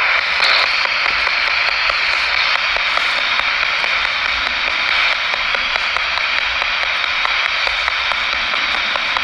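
Radio static from a spirit box scanning through stations: a steady hiss with faint scattered ticks, left running as answers to a spoken question are listened for.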